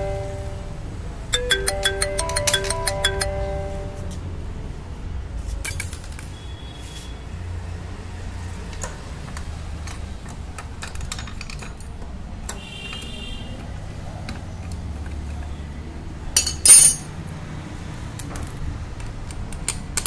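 A phone ringtone plays its short melody a second time, about a second in. Metal tools then clink and knock against the scooter's parts, with one loud sharp clank late on.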